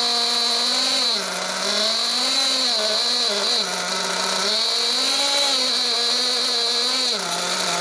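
Alpha Plus nitro engine of an RC buggy running on the bench during static break-in. Its note rises and falls three times as the throttle is gently blipped from the transmitter trigger, with a steady high whine over it.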